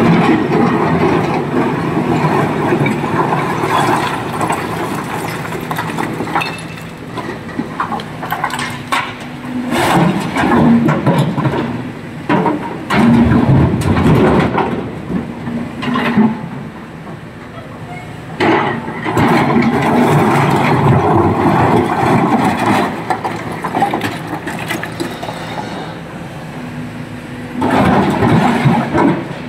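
Hydraulic excavator, a SANY 225, running hard while loading stone into a Tata Prima dump truck: engine noise with repeated crashes and clatter of rocks dropping into the steel tipper body, easing off briefly in the middle.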